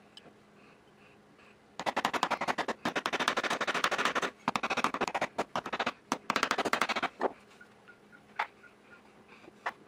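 Small hammer tapping rapidly on the pins of a knife handle, driving the epoxy-coated pins through the wooden scales. The taps come in three quick runs, then a couple of single taps near the end.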